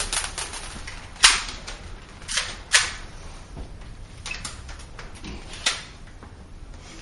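A string of sharp, irregularly spaced pistol shots on an indoor range, the loudest about a second in, another shortly before the three-second mark and one more near the end.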